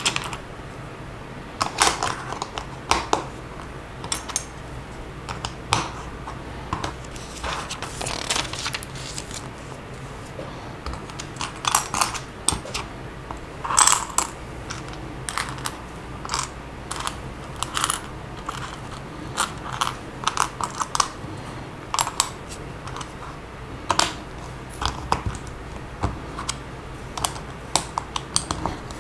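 Plastic Lego pieces clicking and clattering irregularly as they are handled and pressed together by hand, sometimes in quick runs of clicks, over a faint steady low hum.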